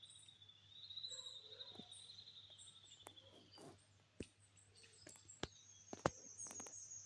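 Faint outdoor ambience: a long, high-pitched trill lasting about three and a half seconds, then a second, higher trill starting about a second and a half before the end. A few sharp clicks fall between them, the loudest about six seconds in.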